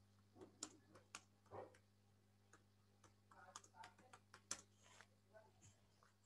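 Faint typing on a computer keyboard: irregular soft keystroke clicks, over a steady low hum.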